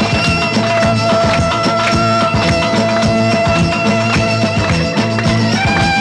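Lively folk-style music with long held melody notes over a fast, steady percussion beat.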